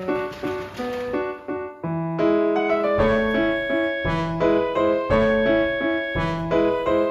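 Background piano music: a gentle melody of single notes, with deeper bass notes joining about three seconds in.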